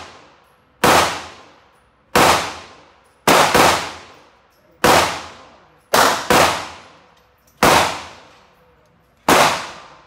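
Gunfire from other shooters at an indoor range: about nine sharp shots, roughly one every second or so with two quick doubles, each cracking and then ringing off as it echoes in the range.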